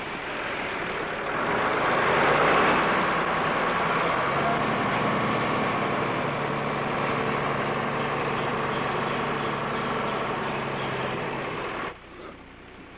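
Truck engine running steadily, stopping abruptly about a second before the end.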